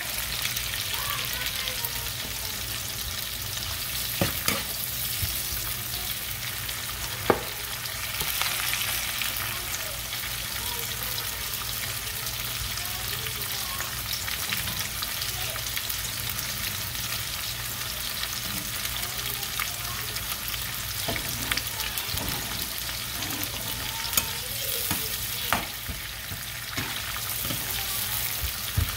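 Sliced onions sizzling in liquid in a frying pan, a steady frying hiss with a few sharp clicks scattered through. Near the end a spoon stirs them.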